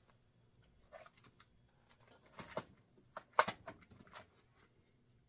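Handling noise on a workbench: a clear plastic parts box being picked up and moved, with light rustling and a scatter of small clicks and knocks, the sharpest about three and a half seconds in.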